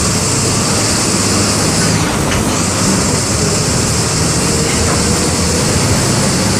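A bus's MWM 6.12 TCE six-cylinder inline turbodiesel running steadily as the bus moves, with a loud high hiss over the engine note. The hiss drops out briefly about two seconds in.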